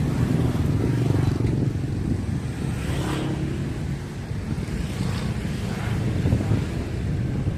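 Wind buffeting the microphone of a camera riding along on a moving bicycle: a steady low rumble.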